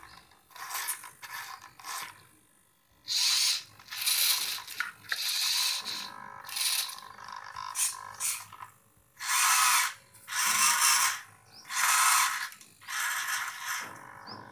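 Hobby servo motors of a homemade robotic arm whirring through their gears in about ten short bursts, each lasting up to a second, as the arm and its gripper move one joint at a time.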